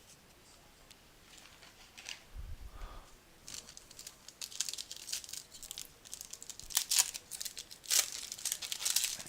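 A trading card pack wrapper being torn open and crinkled by hand. The crackling runs irregularly through the second half, with the sharpest tears about seven and eight seconds in.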